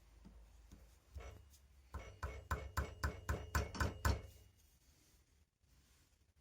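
Light hammer taps on steel: a couple of strikes, then a quick run of about eight, roughly four a second, each with a short metallic ring, stopping suddenly.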